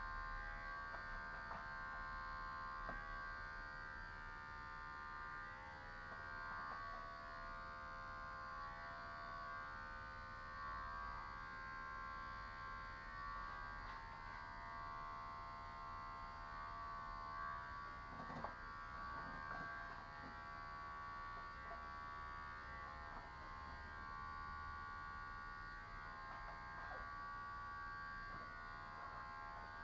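Electric hair clippers running with a steady buzz as they are worked through long hair.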